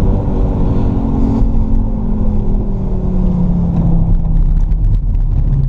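Fiat Stilo Abarth's five-cylinder engine running under way, its pitch slowly falling, over steady tyre noise on a wet track. Scattered clicks come in the second half.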